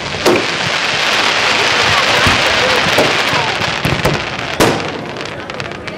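Aerial fireworks: a sharp bang just after the start, then several seconds of dense crackling from the bursting shells, with another bang about three seconds in and a louder one near the end.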